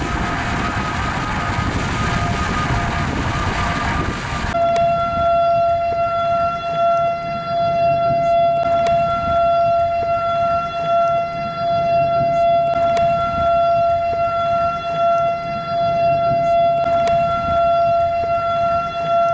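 Outdoor tornado warning siren sounding a steady held tone that swells and fades in loudness. For about the first four and a half seconds it is half-buried under vehicle road noise; after that the siren is heard clearly.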